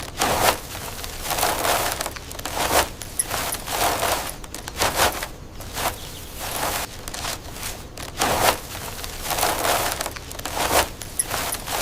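Rhythmic gritty scraping, about one stroke a second.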